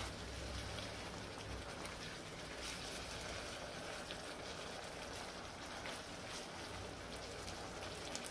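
Ground beef in taco seasoning sauce simmering in a frying pan, a steady fine bubbling, while a slotted spatula stirs it with a few faint scrapes against the pan.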